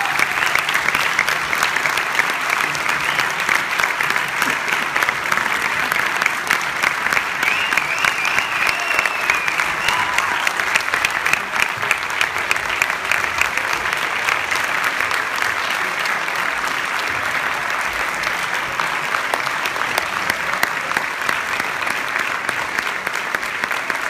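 Audience applauding steadily in a theatre hall after a concert, a few voices calling out about eight seconds in, the clapping easing a little toward the end.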